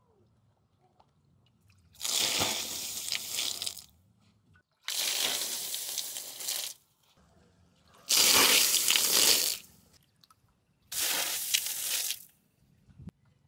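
Water poured from a clay pot splashing onto a concrete and tiled pool surface, in four separate pours of about one and a half to two seconds each, with short quiet gaps between them.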